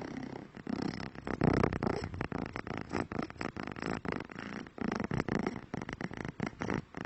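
Domestic cat purring, a rapid pulsing rumble that swells and fades unevenly.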